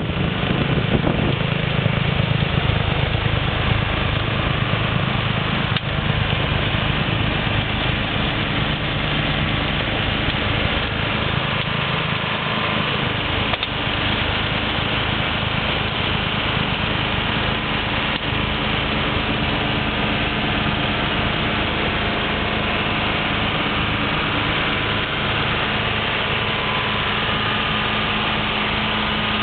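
John Deere 4450 tractor's six-cylinder diesel running steadily while it drives a snowblower, a constant engine hum under a dense rushing noise.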